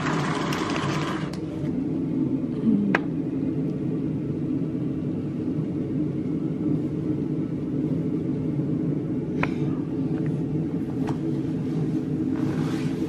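A steady low rushing noise, even and without rhythm, fills the room. There is a short rustle in the first second and a few light clicks later on.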